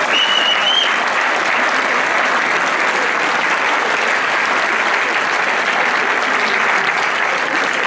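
Audience applauding steadily, with one short high whistle at the start.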